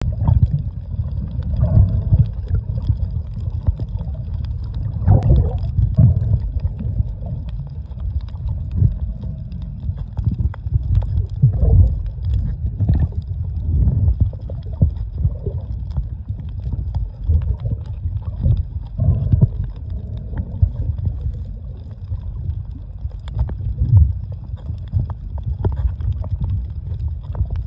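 Muffled underwater rumble with irregular gurgling and sloshing of water, heard through a camera held under the surface.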